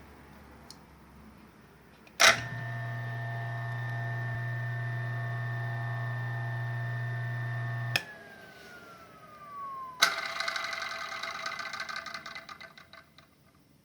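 Yang-Chia Feima 207N electric coffee grinder switched on with a click and running with a steady hum and whine, then switched off about 8 s in. Its motor winds down with a falling whine, and about 10 s in a sudden rattling clatter starts and fades over about three seconds: the abnormal noise the grinder makes on shutdown.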